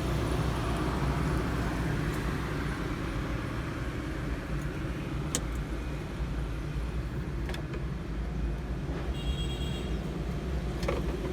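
A steady low engine drone, with a few sharp clicks over it.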